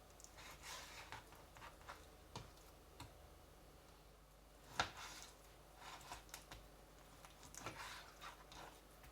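Faint, irregular taps of a kitchen knife on a cutting board as raw chicken is cut into bite-sized pieces, with one sharper knock about five seconds in.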